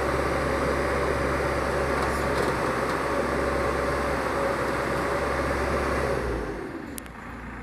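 Komatsu excavator's diesel engine running steadily with a faint steady whine, falling away sharply about six seconds in, followed by a single click near the end.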